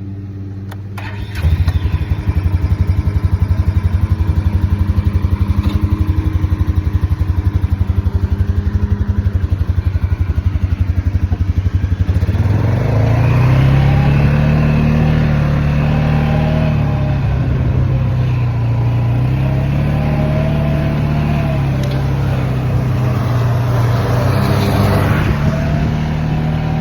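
A vehicle engine comes on suddenly about a second and a half in and runs steadily with an even, rapid pulse. About halfway through, its pitch rises and then goes up and down, as the engine speeds up and slows.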